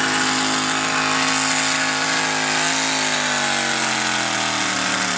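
V8 engine of a hot rod pulling tractor running hard under load while pulling the sled. Its note holds steady, then drops from about three seconds in as the revs fall.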